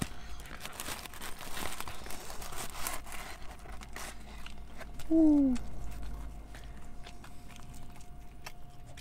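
Pizza slices pulled from a cardboard pizza box and eaten: rustling and crinkling of the box and crust in the first three seconds, then small bites and chewing sounds. About five seconds in, a brief falling hum, the loudest sound here.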